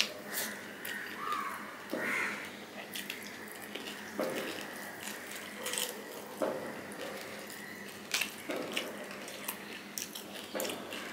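Close-up wet chewing and lip-smacking of rice and curry eaten by hand, with many short clicks and squelches. Fingers squish and mix the rice and curry on the plate.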